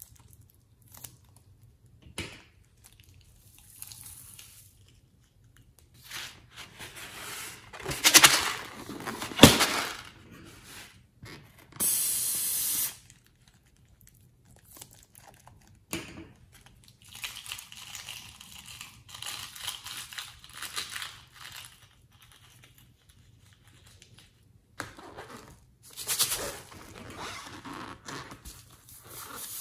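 Small scissors snipping into the rubber necks of filled balloons, with rubbery squeaks and crinkling as the balloons are handled. A steady hiss lasting about a second comes near the middle.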